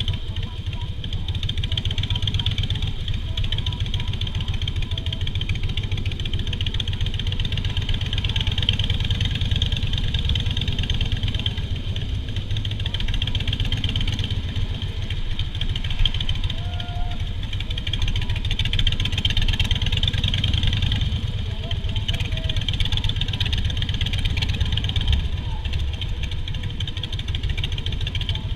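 Harley-Davidson Softail Standard's V-twin engine running steadily, its low, even firing pulses continuous without a break.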